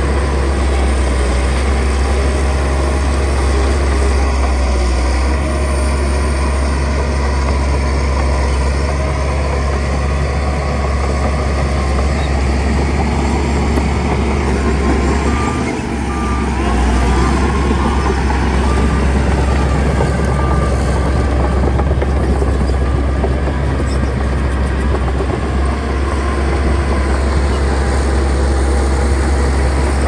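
Heavy diesel earthmoving machinery running steadily with a deep rumble. About halfway through, a reversing alarm beeps several times.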